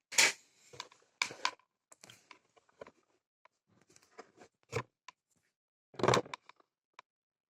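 Handling noise: a string of short clicks, knocks and rustles, the loudest about a quarter second in and about six seconds in.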